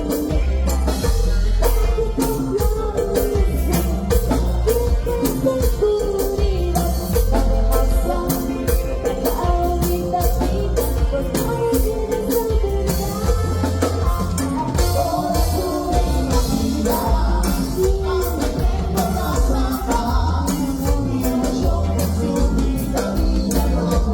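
Band music with a singing voice over a strong bass line and a steady percussion beat.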